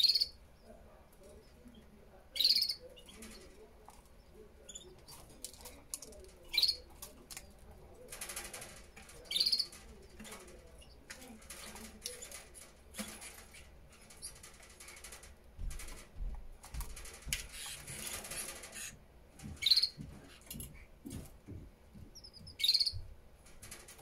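Canary at its nest giving short, high chirps, about six of them a few seconds apart, with a couple of longer bouts of rustling in between.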